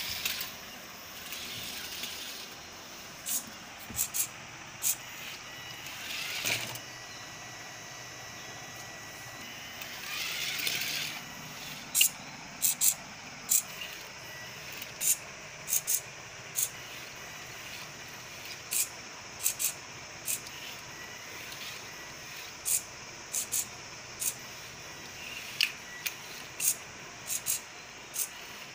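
Small DC gear motors of a two-wheeled robot car whirring steadily, with scattered sharp clicks that come more often in the second half and a few brief swells of hiss.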